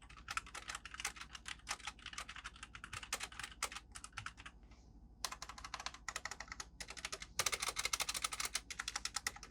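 Fast typing on a Havit KB255 60% mechanical keyboard with red switches: a quick patter of keystrokes, with a pause of about a second around the middle.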